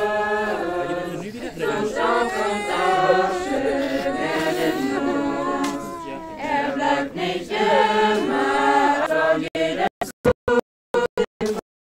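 A group of voices singing together without instruments. About ten seconds in, the sound breaks up, cutting out and back in several times.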